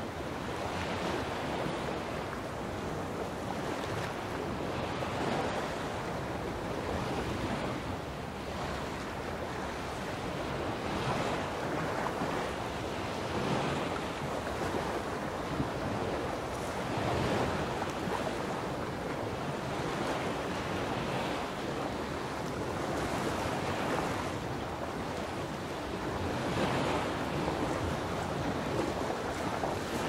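Sea waves washing onto a beach, the surf swelling and easing again every couple of seconds.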